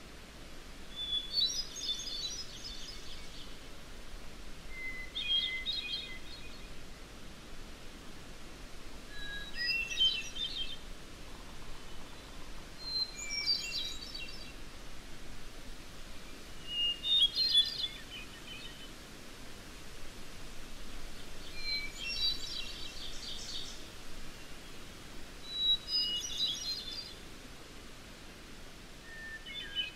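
A songbird from a wilderness nature recording sings eight short phrases, one about every three to four seconds. Each phrase opens on a single clear note at a different pitch and breaks into a quick jumble of higher notes, over a faint steady hiss.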